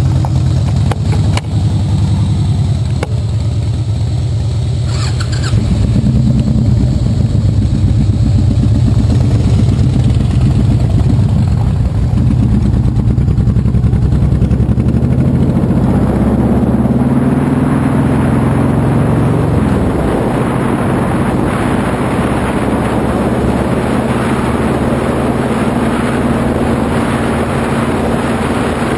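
Motorcycle engine running at a standstill, then pulling away and accelerating, its pitch climbing and dropping once at a gear change. Wind rushing over the microphone builds as speed picks up.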